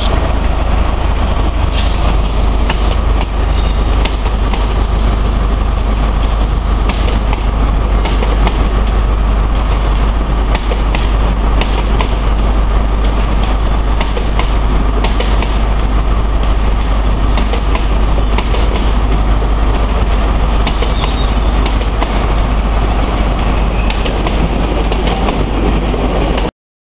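A CrossCountry InterCity 125 high-speed train with Class 43 diesel power cars running along a station platform. Its diesel engines drone steadily with a heavy low rumble, and the wheels click now and then over rail joints. The sound cuts off abruptly near the end.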